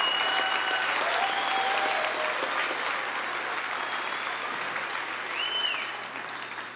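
Audience applauding, with a few shrill cheers or whistles over the clapping; the applause dies down toward the end.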